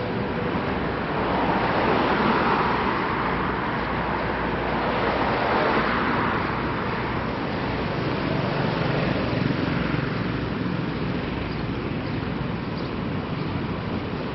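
Road traffic on a busy city street: a steady wash of car engine and tyre noise, swelling louder as vehicles pass about two seconds in and again about six seconds in.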